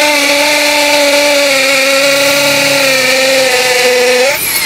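Workfix ID13100 21 V cordless hammer drill in hammer mode, its masonry bit boring into a concrete block: a steady motor whine that sags slightly in pitch under load, cutting off about four seconds in.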